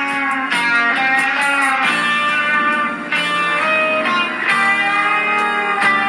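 Electric guitar music: chords struck every second or so and left to ring out.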